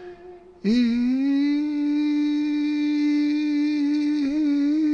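A woman's voice holding one steady vowel on a single pitch, with the vocal cords closed and vibrating in normal voicing, seen by laryngoscope. It begins as a faint breathy tone, swells to full voice about half a second in, and wavers briefly near the end.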